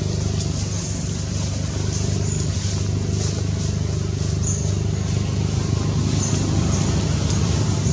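Steady low engine hum, like a motor running at idle, with faint short high chirps over it.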